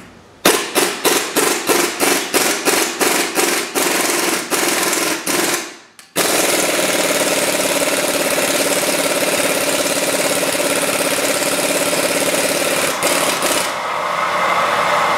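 Impact wrench hammering on a rust-seized lower rear shock bolt that has just been heated with a torch. It comes in short hits, about three a second, for some five seconds, then hammers without a break after a brief pause.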